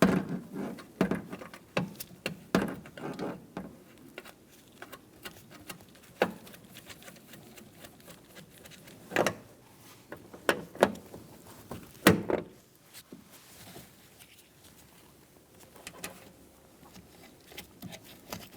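Scattered clicks, taps and knocks of a replacement interior cargo-door handle being fitted over its mounting studs, with its linkage lever, and its nuts handled. A few louder knocks come about halfway through.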